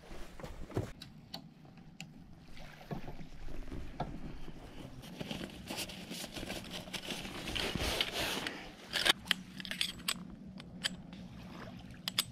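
Metal camp-cot poles clicking and knocking together and the cot's fabric sheet rustling and scraping as the cot is handled and assembled, with a cluster of sharp clicks near the end.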